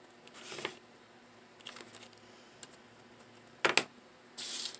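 Handling noise from satin ribbon petals being picked up off the tabletop and worked into the flower: a few short, soft rustles and taps, with one sharp click about three and a half seconds in.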